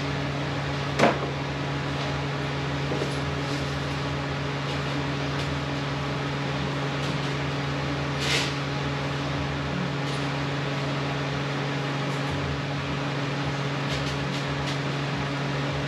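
Steady mechanical hum of shop ventilation equipment, with a sharp click about a second in and a brief hissing scrape around eight seconds in.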